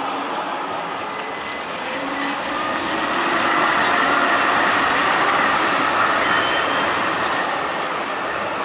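Tram passing close by on street track, its wheels rolling on the rails, growing louder as it goes past and then easing off, with a faint high-pitched wheel squeal over the rumble.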